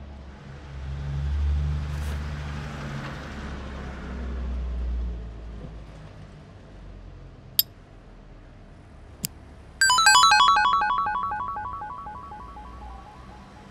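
Cartoon-style music and sound effects: a low rumbling swell over the first few seconds, two sharp clicks, then a loud, bright flurry of quick chiming notes that fades away over a few seconds.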